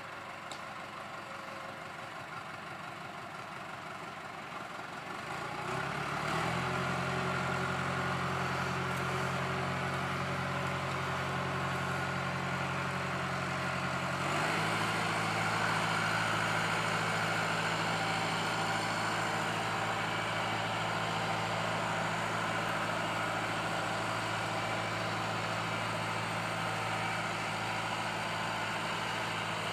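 Landini tractor's diesel engine under load skidding logs. Its revs rise about five seconds in and hold steady, and the pitch shifts once about fourteen seconds in.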